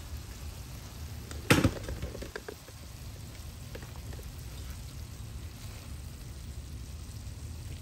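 Sausage and cabbage sizzling faintly in a hot cast iron skillet with the burner just turned off. A single sharp knock about one and a half seconds in.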